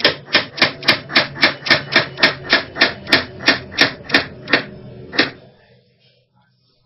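Kitchen knife chopping carrot on a plastic cutting board: a quick, even run of about four cuts a second that stops a little after five seconds in.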